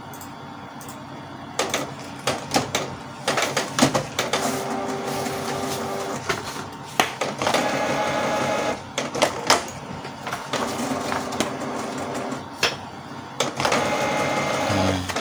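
Canon PIXMA iP2770 inkjet printer printing a page: clicks from the paper feed, then repeated runs of the print-head carriage and feed motor whirring, starting and stopping. The printer is working again without the eight-blink error, the sign that the ink absorber counter reset worked.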